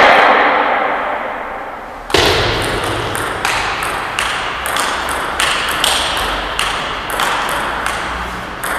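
Table tennis rally: the ball clicks off paddles and table about twice a second, each hit echoing in a large hall. The rally starts about two seconds in, after a loud noise from just before dies away.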